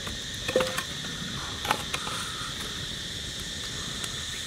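Steady high-pitched insect drone of crickets trilling, with a few sharp cracks and knocks, the loudest about half a second in and again just under two seconds in.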